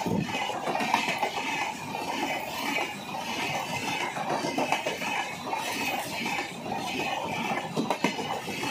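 Tejas Express passenger coaches rolling past at close range: a steady rush of wheels on the rails, with a couple of sharp clacks about a second in and near the end.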